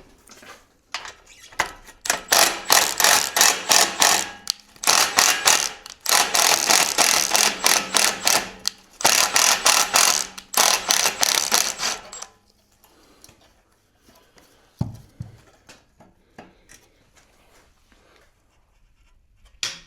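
A socket ratchet clicks rapidly in several runs of a few seconds each as bolts are undone on the gearbox mount of a BMW E36 during a gearbox swap. Then it goes quiet, with a single knock about fifteen seconds in.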